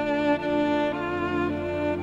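Slow background music on bowed strings, long held notes with a slight vibrato, moving to a new chord about a second in.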